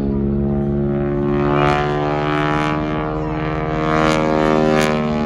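Stearman biplane's 450 hp nine-cylinder radial engine and propeller droning in aerobatic flight, a steady pitched drone that swells with a harsher propeller rasp twice, about two seconds in and again near the end.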